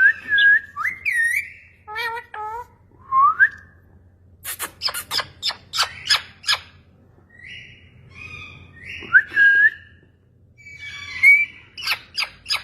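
Ringneck parrot calling: short rising whistles mixed with a quick run of sharp, clipped squawks in the middle and bits of pitched chatter.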